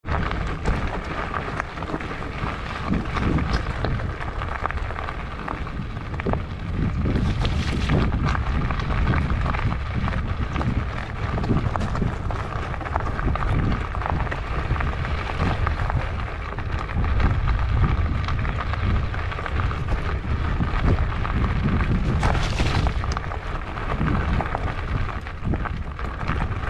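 Fat-bike tyres rolling over a gravel track, with a steady low rumble and many small knocks as the bike jolts over stones, and wind buffeting the handlebar-mounted camera.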